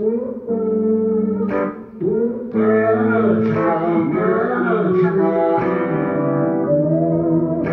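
Performance music: a guitar-led song with a singing voice.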